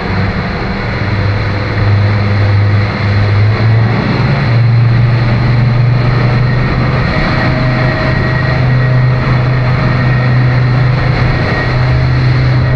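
Twin Suzuki outboard motors running hard as the catamaran cruises, over a steady rush of wind and churning water. The engines' hum steps up a little in pitch about four and a half seconds in.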